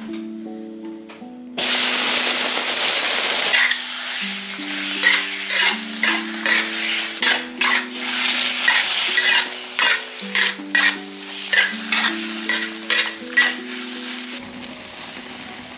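Sliced beef dropped into hot oil in an iron wok, starting a sudden loud sizzle about a second and a half in. It is then stir-fried, the spatula scraping and knocking against the wok about twice a second over the sizzle, which eases off near the end.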